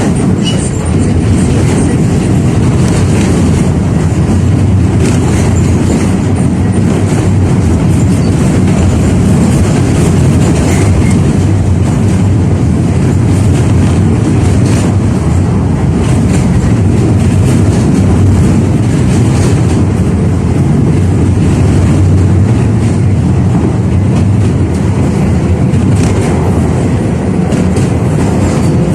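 A 71-605A (KTM-5A) tram running along the track, heard from on board: a steady low rumble of wheels on rails, with occasional clicks from rail joints.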